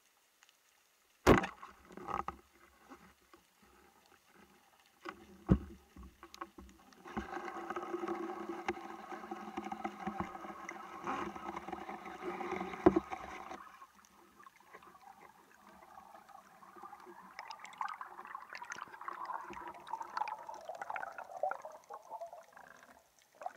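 Underwater, a rubber-band speargun (Arbalète Dentex 100) fires with one sharp snap about a second in, followed by a few smaller clicks. Later a steady droning tone with many overtones lasts several seconds, and near the end there is a wavering bubbling as air bubbles stream past.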